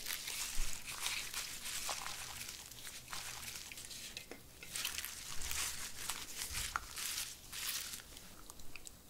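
Fresh cilantro sprigs rustling and crackling as handfuls are piled onto a pan of malatang with gloved hands, in several bouts of rustling with small crisp snaps.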